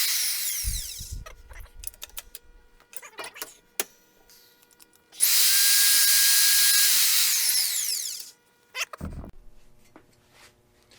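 Powered tube roller's drive motor running under foot-pedal control with a steady whine, then stopping and winding down with a falling pitch. It runs again for about three seconds about five seconds in and winds down once more. Clicks and knocks come between the runs, and a low thump near the end.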